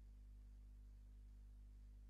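Near silence: a faint, steady low hum with light hiss.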